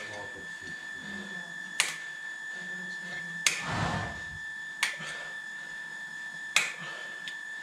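A hoof knife paring a horse's hoof: four sharp cutting clicks spaced one to two seconds apart, with a longer scrape about halfway. A faint steady high tone runs underneath.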